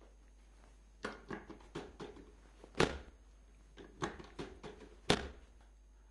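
Clicking and knocking from a chiropractic treatment table as the patient's hips are adjusted. The sounds come in two runs of quick knocks, each ending in one loud thump, the first a little under three seconds in and the second about five seconds in.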